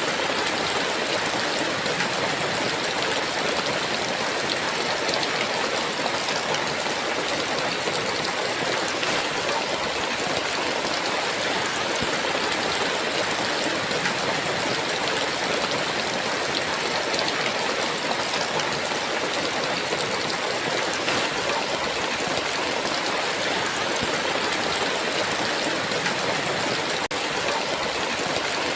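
Heavy rain falling steadily in a dense, even downpour, with countless small drop impacts and no thunder.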